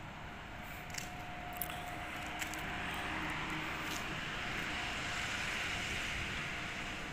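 Distant engine noise that swells to a peak about five to six seconds in and then eases, over a faint steady hum, with a few light clicks.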